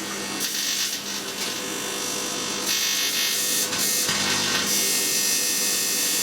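Twin-magnetron microwave oven running, with a steady electrical hum and a continuous harsh crackle of arcing from titanium turnings inside the oven.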